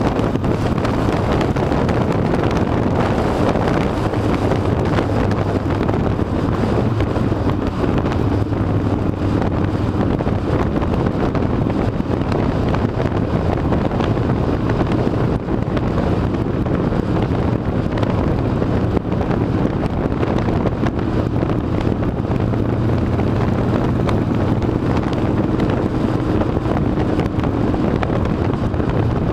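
Harley-Davidson V-twin motorcycle engine running steadily on the move, with wind rushing over the microphone.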